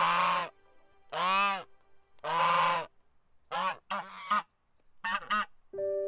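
Canada goose honking: three long honks about a second apart, then a quicker run of shorter honks.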